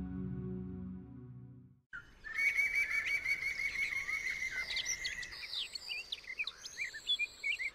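Soft background music fades out, and after a brief pause a chorus of songbirds starts chirping: a fast, evenly repeated trill with other short chirps and calls scattered over it.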